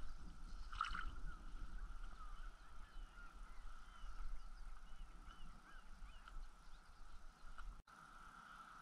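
Low, steady rumble of wind on the microphone, with faint, scattered high chirps of distant birds and one short rustle about a second in.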